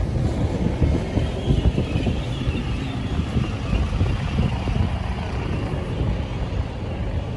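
A Great Western Railway train standing at a station platform with its machinery running, under gusty low rumble from wind on the microphone. A faint high whine comes in about a second and a half in.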